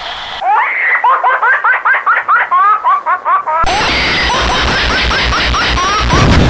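Baby laughing sound effect: a string of short rising, high-pitched giggles, about four a second. About three and a half seconds in it cuts to a distorted, bass-heavy version buried in steady noise, which gets louder near the end.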